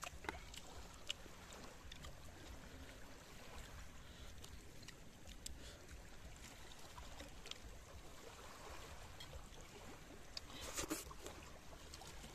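Quiet wash of small waves lapping at the shoreline, with a few faint clicks and a brief rustle about eleven seconds in.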